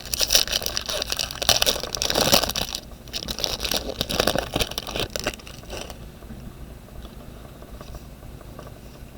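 Baseball card packs and cards being handled: wrapper crinkling and cards scraping against each other for about six seconds, then quieter.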